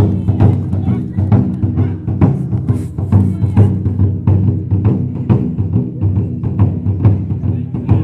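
Japanese taiko drums (wadaiko) played by an ensemble in a fast, steady rhythm, with deep booming strokes following one another without a break.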